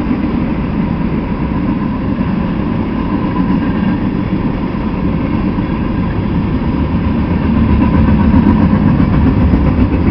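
Freight train rolling past: covered hopper and tank cars rumbling and clattering steadily on the rails, a faint steady high tone running through it. It grows a little louder about seven and a half seconds in.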